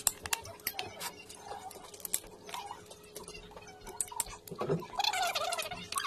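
Cooked crab shell being cracked and peeled apart by hand, with sharp snaps and crackles, mixed with wet chewing and sucking sounds of eating.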